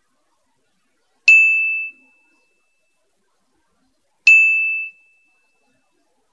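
Two short electronic beeps about three seconds apart, each a single clear tone that starts sharply and fades over about half a second: the cue beeps of an eye-exercise app signalling the switch of focus between near and far.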